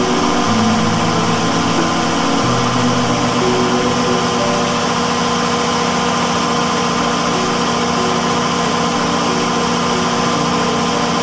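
Large generator set's engine running steadily at idle.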